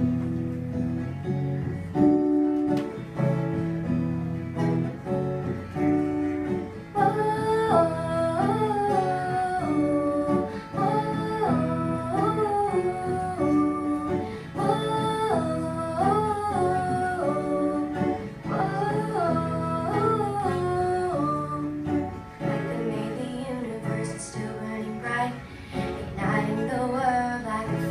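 Acoustic guitar playing a picked song intro, joined about seven seconds in by a wordless sung melody in repeated phrases that drops out a few seconds before the end.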